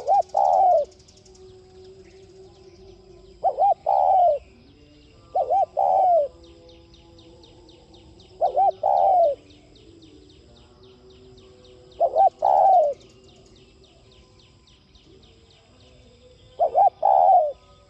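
Spotted dove cooing: six calls a few seconds apart, each two short notes followed by a longer coo.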